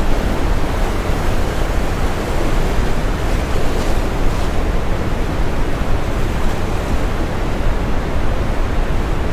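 Steady brown noise, a deep even hiss strongest in the low end, mixed with the wash of ocean waves on a shore.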